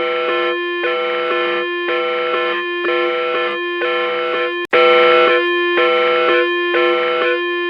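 Emergency alert system alarm tone: a repeating pattern of pitched electronic notes switching about twice a second over a steady held tone. It cuts out for an instant a little past halfway and comes back slightly louder.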